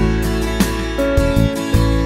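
Instrumental background music led by plucked guitar, with notes struck in a steady rhythm.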